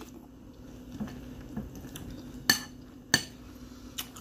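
Metal spoon clinking against a cereal bowl as it dips in for more cereal: a few sharp clinks, the two loudest about two-thirds of a second apart a little past halfway, and a lighter one near the end.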